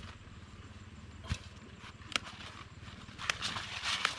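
Two sharp knocks about a second apart as a machete cuts through large leaf stalks. Near the end comes a burst of crisp rustling as the big fresh leaves are handled.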